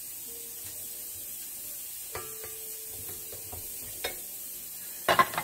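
Rubber spatula scraping and stirring meatloaf mixture on the flat beater and steel bowl of a KitchenAid stand mixer. There are a couple of light knocks, then a quick run of sharp clacks against the beater and bowl about five seconds in.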